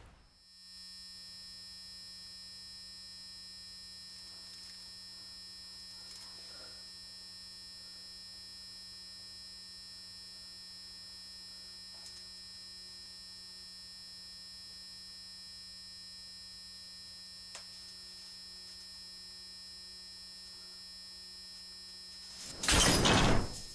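Steady electrical hum with a thin high whine over it, broken by a few faint clicks; near the end, a loud burst of noise lasting about half a second.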